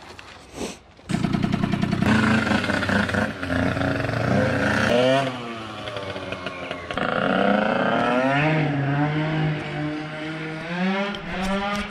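Small two-stroke bike engine that catches about a second in and is then revved hard, its pitch repeatedly climbing and dropping as the bike accelerates.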